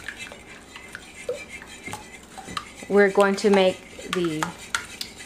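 Metal wire whisk beating raw eggs in a glass bowl, its wires clicking rapidly against the glass. A voice is heard briefly a little past the middle.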